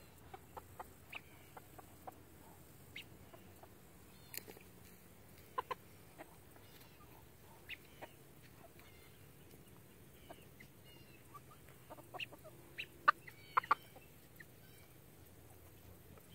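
Bantam hens clucking now and then while foraging: short, scattered clucks, with a cluster of louder ones near the end.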